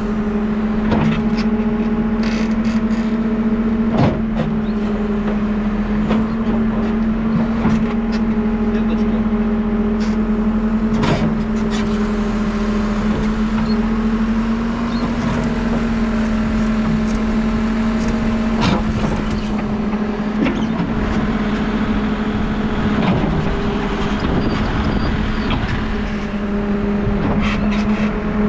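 New Holland backhoe loader's diesel engine running steadily at working speed, with a few sharp knocks from the machine at work.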